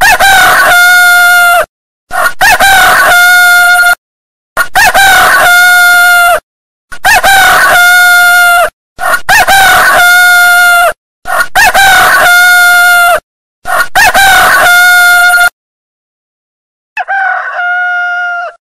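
Rooster crowing over and over, seven loud crows back to back about every two seconds, each a short rising start drawn out into a long held note. After a pause of about a second and a half, a quieter crow comes near the end.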